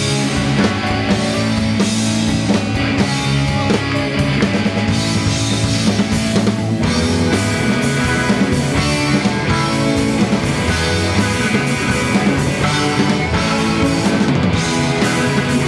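Live rock band playing an instrumental passage, with electric guitar and drum kit, at a steady full level.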